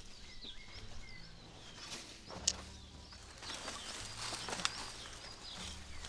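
Small birds chirping repeatedly, with rustling and a sharp click or knock about two and a half seconds in and a smaller one near five seconds.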